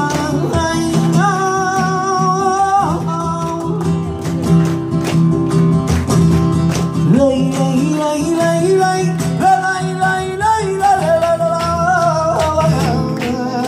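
Live flamenco tangos: a man sings long, wavering, held notes over a nylon-string flamenco guitar that strums and plucks.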